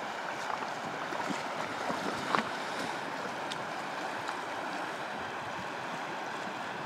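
River water rushing steadily past, an even noise of flowing current, with one brief click about two and a half seconds in.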